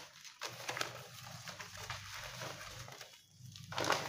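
Newspaper packing being pulled apart and crumpled by hand: dry rustling and crackling of paper, with a louder rustle near the end.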